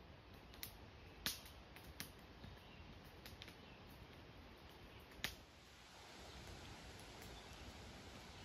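Near silence: faint woodland ambience broken by a few sharp clicks in the first five seconds, the loudest about a second in and just past the five-second mark.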